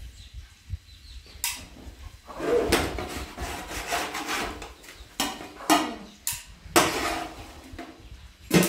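Irregular knocks and clattering of hard objects being handled, about half a dozen sharp strikes, some ringing briefly.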